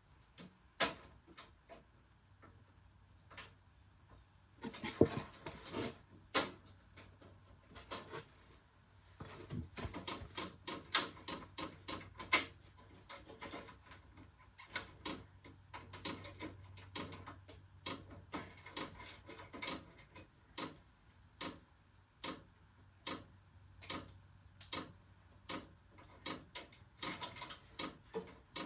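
A diesel air heater's fuel dosing pump ticking as it primes, mixed with plastic clicks, knocks and rustling as the heater's cover shell is handled and taken off.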